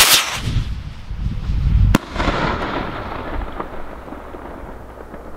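Stick thunder rocket launching with a loud rushing hiss of its motor. About two seconds in comes a single sharp bang as its report goes off, followed by a fading rumble of echo.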